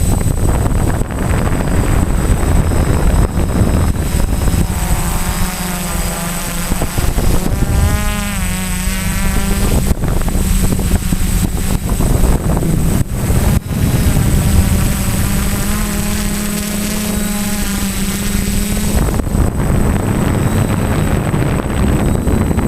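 Quadcopter's electric motors and propellers buzzing in flight, the pitch wavering up and down as the throttle changes. A thin steady high tone sits over it throughout.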